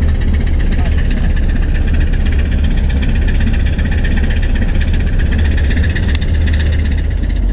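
Fishing boat's engine running steadily, a constant low drone under a steady hiss.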